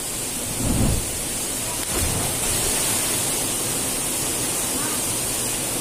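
Steady rushing noise of a waterfall and its pool, with a brief low thump about a second in.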